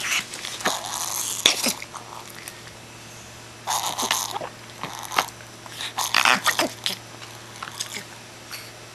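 A dog breathing with effort: irregular bursts of noisy breaths with small clicks, in three spells with a pause of about a second and a half after the first. The sound is the sign of a breathing problem; the dog does not sound well.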